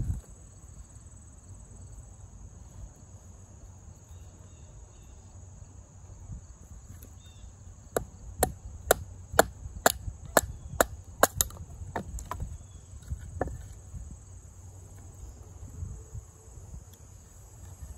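A run of about a dozen sharp wooden knocks, roughly two a second, from a large fixed-blade knife (LionSteel M7) being struck into and through wood, starting about halfway in and stopping a few seconds later. Crickets chirp steadily in the background.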